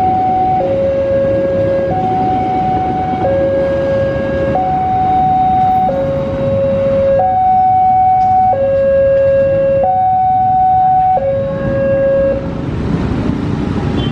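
Railway level-crossing warning alarm sounding an electronic two-tone, alternating a lower and a higher note about every 1.3 seconds, over the rumble of a passing passenger train. The alarm stops about twelve seconds in, and motorcycle engines pick up as the waiting traffic starts across.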